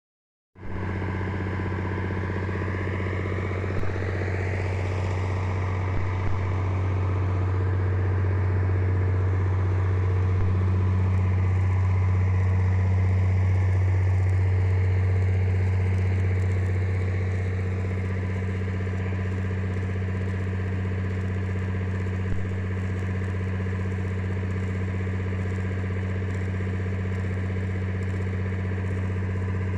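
An engine running steadily at idle, a low even hum that swells slightly in the middle, with a few faint clicks.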